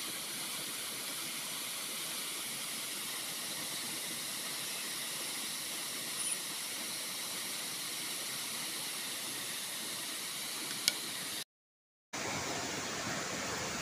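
Steady rushing hiss of a nearby waterfall, with a faint clink about six seconds in. The sound cuts out for about half a second near the end, then the hiss returns.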